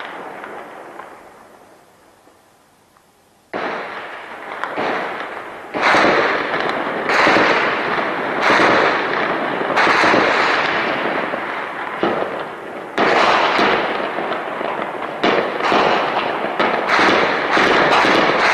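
Heavy gunfire: after the echo of an earlier shot dies away, many shots ring out in quick, overlapping succession from about three and a half seconds in, each trailed by a long echo, growing denser toward the end.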